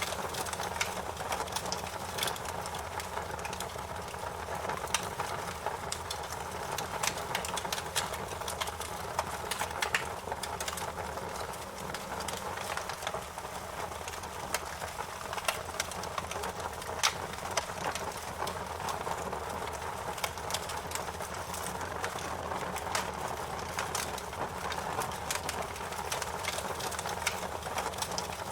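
Wood fire crackling in a fireplace: frequent, irregular sharp pops and snaps over a steady low rumble.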